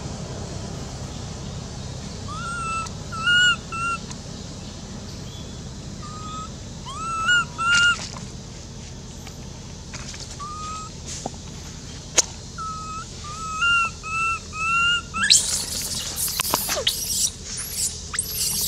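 Baby long-tailed macaque crying: short whistle-like whimpers in twos and threes, then loud, shrill screaming near the end.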